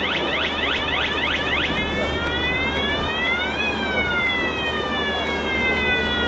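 Warning siren of a bridge beam-launching gantry, sounding fast rising whoops about four a second. About two seconds in it changes to one slow wail that rises and then falls away. A steady low machinery hum runs underneath.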